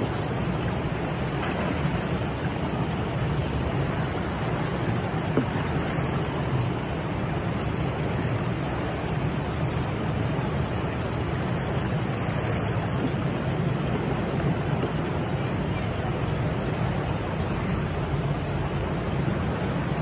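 Steady rushing of turbulent water churning against a concrete channel wall, an even noise with no separate splashes standing out.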